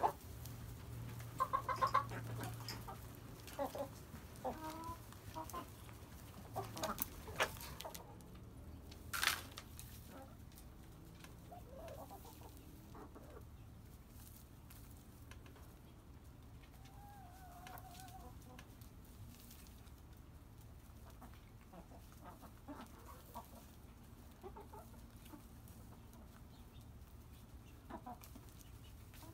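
A flock of hens clucking on and off, louder and busier in the first eight seconds and softer after that, with one sharp click about nine seconds in.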